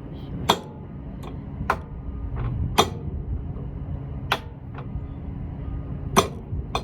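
A run of sharp clicks and knocks from hand tools and parts being handled: about five loud ones at uneven intervals, with fainter ones between, over a steady low hum.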